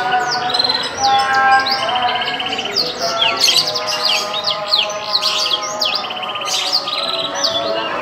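Domestic canary singing continuously: a loud, varied song of rapid downward-sweeping notes, fast buzzy trills and held whistles.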